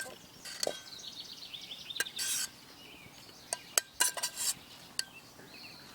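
Metal utensils clinking against pans and dishes while cooking, a series of sharp separate clinks.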